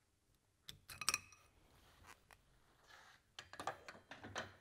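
Metal parts of a pump being handled on a workbench: a sharp metallic clink with a brief ring about a second in, then a cluster of knocks and scraping clatter near the end.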